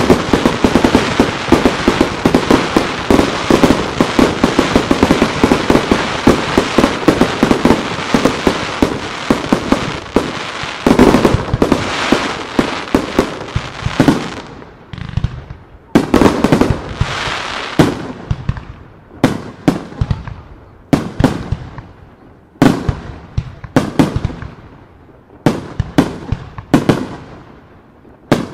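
Fireworks display: a starmine barrage of shells bursting in very quick succession, thinning about halfway through into separate loud bangs a second or so apart, each fading out with a tail.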